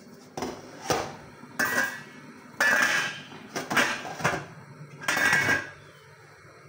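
Stainless steel couscoussier pieces and bowl clanking: a series of metal knocks, several ringing out, as couscous is tipped into the steamer basket, the basket is set on the steaming pot and the lid put on for the second steaming.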